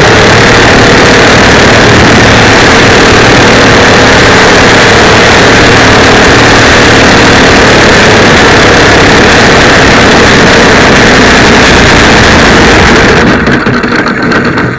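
The 55cc two-stroke gas engine of a large RC aerobatic airplane, running at low throttle as the plane lands and rolls out, heard from a tiny camera on the wing. It is loud enough to overload the microphone. It runs steadily, then drops off sharply about a second before the end.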